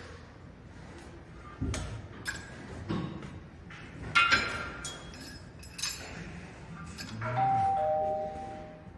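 Metal gym equipment clinking and clanking: a handful of sharp metallic strikes with short ringing, spread over several seconds, and a brief ringing tone near the end.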